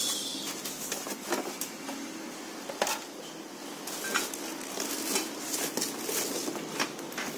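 Unpacking noise: cardboard box flaps and packing rustling, with scattered light knocks as a wooden cover board and coils of corrugated plastic suction hose are lifted out.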